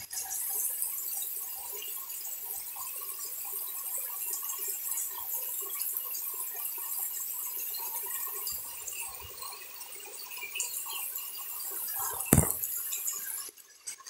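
Rain falling onto a flooded dirt yard: a steady hiss with many small drips and splashes into standing water. One sharp thump about twelve seconds in.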